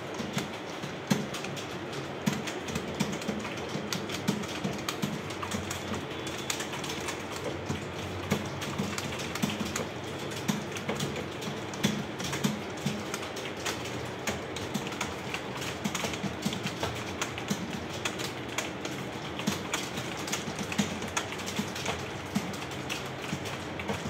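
Several computer keyboards being typed on at once: a fast, unbroken clatter of key clicks.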